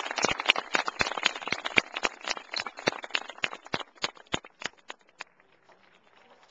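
Audience applauding, the clapping thinning out to a few scattered claps and stopping about five seconds in.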